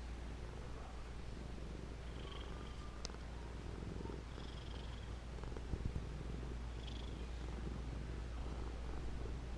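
Domestic cat purring steadily close to the microphone, with a faint click about three seconds in and two soft bumps near the middle.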